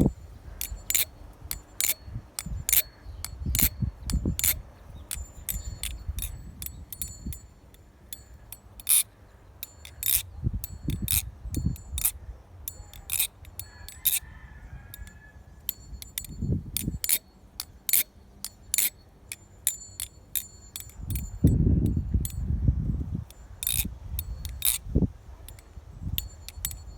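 Theone Tsunami clone balisong being flipped: irregular runs of sharp metallic clicks and clacks as the handles swing and snap against the blade and each other, each with a brief high ring. A few low rumbles come in between.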